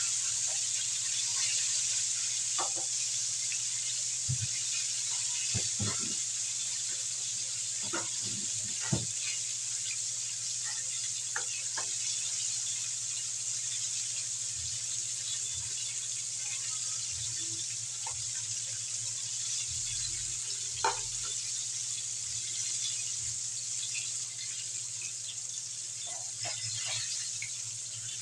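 Breaded chicken pieces deep-frying in hot oil in a wok: a steady sizzle, with a few sharp clicks and pops scattered through it.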